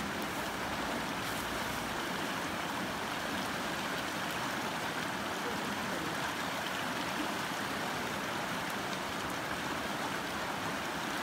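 Shallow, fast-flowing mountain river rushing steadily over stones and small rapids.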